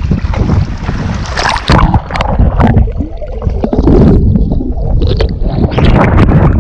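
Water splashing and sloshing close around a wading person, heard on a body-worn action camera. About three seconds in the sound turns muffled for a moment as the camera dips under the water.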